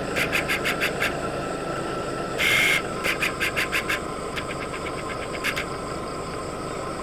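Night insects calling outdoors in rhythmic pulse trains of about seven pulses a second. The trains come in several groups, with a louder burst about two and a half seconds in, over a steady background of insect tones and a low rumble.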